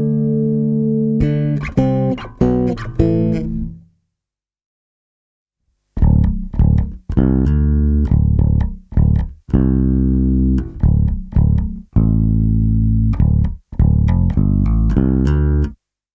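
1997 Warwick Corvette six-string bass with a bubinga body and Seymour Duncan Basslines humbuckers, played unaccompanied. A held chord and a few plucked notes, with the pickups in passive mode, die away about four seconds in. After two seconds of silence it starts again in active mode with the MEC preamp EQ flat: plucked notes mixed with held low notes.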